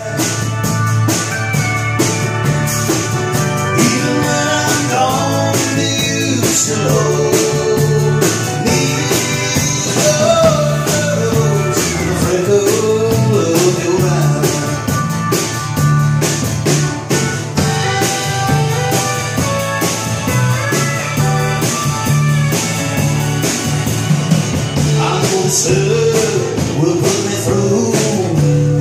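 Live band playing the intro of a country-rock song: guitar over a steady beat.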